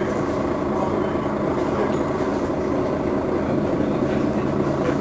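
Mercedes-Benz Citaro facelift city bus's diesel engine idling steadily with the bus standing still.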